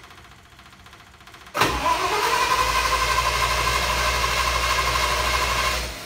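A start attempt on a 1978 International Loadstar's MV446 V8: the engine is suddenly cranked over about one and a half seconds in and turns steadily with a whine for about four seconds, then stops just before the end.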